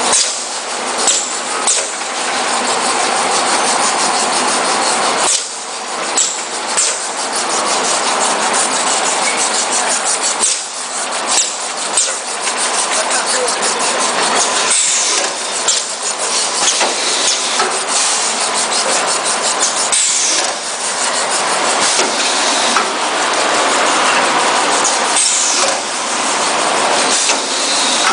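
Shrink-wrap packaging machine running: a loud, steady rushing clatter with many small clicks, dipping briefly about every five seconds.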